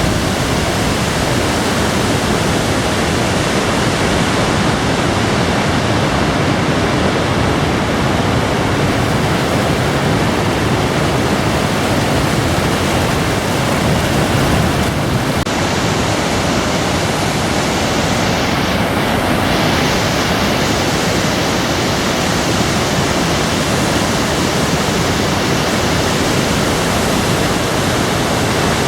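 Waterfall's water rushing, loud and steady.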